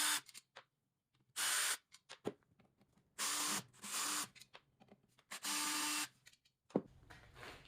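Power drill-driver run in short bursts of under a second, about five times, as fasteners are backed out of the furnace cap and arm. Small handling clicks fall between the bursts, and there is a sharp click near the end.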